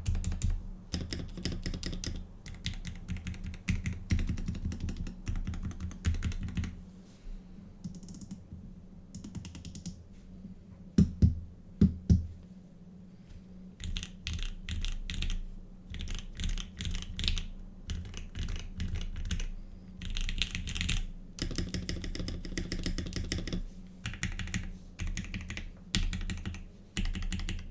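Custom Laneware LW-75 mechanical keyboard being typed on, with lubed and filmed turquoise Tealio linear switches in an aluminium plate under GMK Trackday-style keycaps, giving a clacky sound. Fast runs of keystrokes come in bursts with short pauses, and two louder, deeper keystrokes land about eleven and twelve seconds in.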